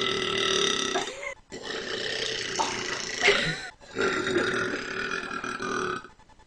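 A woman's long, drawn-out burps. One ends about a second in, then two more follow, each lasting about two seconds at a fairly steady pitch.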